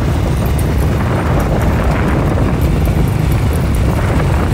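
Motorcycle running steadily on the move, with heavy wind rumble on the microphone.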